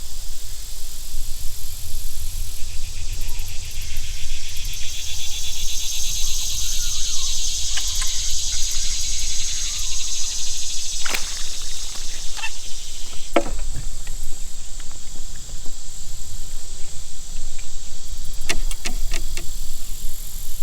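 Insects buzzing in a steady high drone that swells in the middle, over a constant low rumble. A few sharp clicks and knocks come around the middle, and a quick run of them comes near the end.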